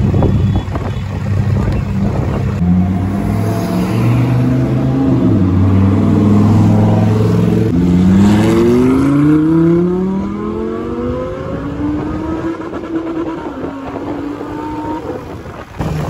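Lamborghini Huracán Performante's V10 engine revving and pulling away. Its note steps up in pitch, then climbs in several rising sweeps through the gears.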